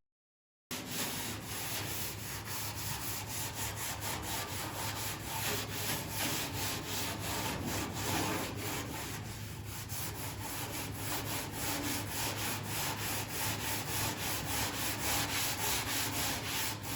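A Scotch-Brite pad being rubbed by hand over the Ford F100's body paint in quick, even back-and-forth strokes, scuffing the surface to prepare it for clearcoat.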